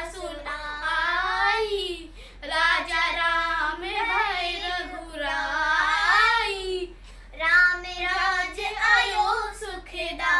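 Children singing an unaccompanied Hindi song retelling the Ramayana, in three sung phrases with short breaks about two and seven seconds in.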